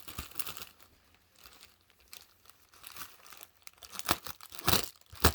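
Cardboard shipping boxes and packaging being handled: faint rustling, then three sharp crackles of cardboard in the last second and a half.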